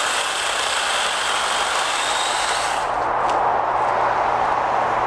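Battery-powered electric chainsaw running with a rising whine, then stopping sharply about three seconds in, over a steady rushing background noise.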